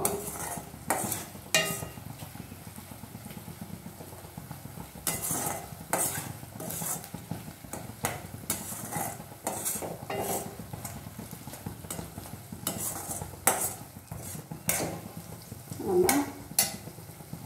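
A steel spoon scraping and clinking against a stainless steel kadai as diced brinjal fry is stirred, in irregular strokes, over a soft sizzle from the hot oil.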